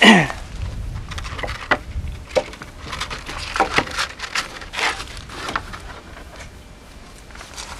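Wooden boards and painting panels knocking and clattering as they are handled and pulled from a wooden shelf: a string of separate sharp knocks. A short falling squeak comes right at the start.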